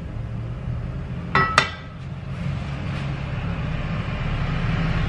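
Two quick ringing metallic clinks as a nonstick frying pan is set down on a gas stove's grate. Then a hiss rises and grows steadily louder as the gas burner under the pan is turned on, over a low steady hum.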